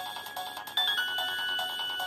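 Polyphonic ringtone playing on a Nokia 1600 mobile phone: held electronic melody notes over a steadily repeating accompaniment, with the melody moving to new notes about a second in.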